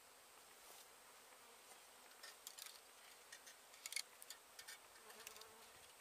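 Faint buzzing of honey bees, with a scatter of light sharp clicks and ticks, the loudest about four seconds in.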